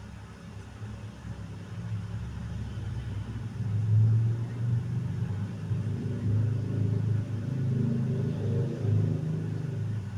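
Motorcycle engine running with a low rumble, getting louder about four seconds in and then revving unevenly up and down.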